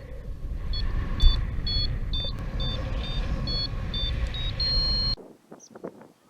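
Strong wind buffeting the microphone in a heavy, continuous low rumble that cuts off abruptly about five seconds in. Faint short high-pitched beeps repeat about twice a second over the wind.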